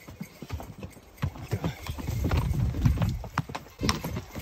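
Horse's hooves clopping on a rocky, gravelly trail: sharp, uneven clicks as they strike stones, over a low rumble.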